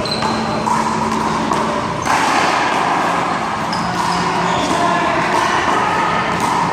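Rubber handball being struck and bouncing off the wall and pavement during a one-wall handball rally: a few sharp smacks over background voices.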